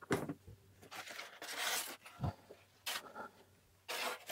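Packing being pulled out of a large cardboard box: a cardboard sheet slid across the top and styrofoam blocks lifted out, with scraping and rustling in short spurts and a soft knock a little after two seconds in.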